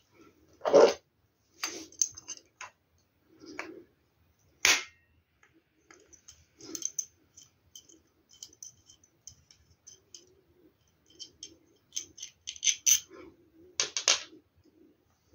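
Handling noise: scattered clicks and knocks of a small flat metal part being handled and fitted to the plastic case of a portable power station, with light rustling between them. The sharpest clicks come about a second in and about five seconds in, and a quick run of clicks follows near the end.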